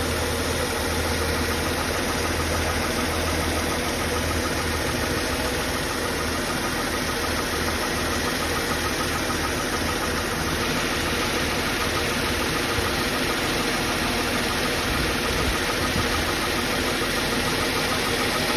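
Mercedes W203's engine idling steadily, with its accessory belt running on a shorter bypass belt routed around the failed AC compressor.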